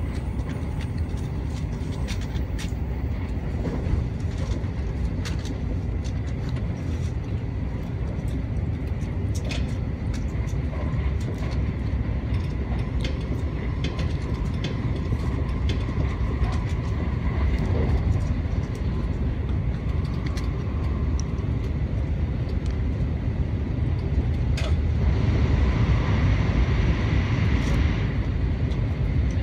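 Running noise of an N700A Shinkansen train heard from inside the passenger cabin: a steady low rumble with scattered faint clicks. A rushing hiss swells for a few seconds near the end.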